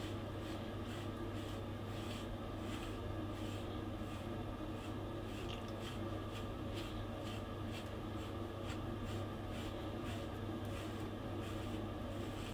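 A brush raked through a mame shiba's thick coat in short scratchy strokes, about two a second, combing out shedding undercoat, over a steady low hum.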